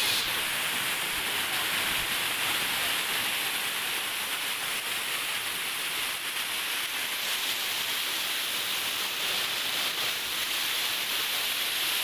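Small waterfall cascading over stepped rock ledges: a steady rush of falling and splashing water.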